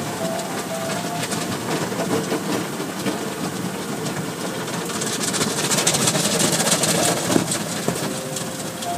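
Automatic car wash heard from inside the car: water spray and cloth brushes scrubbing and slapping against the windshield. The scrubbing grows louder and denser about five seconds in, as the brushes cover the glass.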